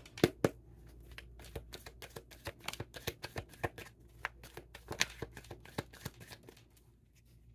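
A deck of tarot cards being shuffled by hand: a quick, irregular run of card snaps and clicks, with a few sharper snaps, thinning out near the end.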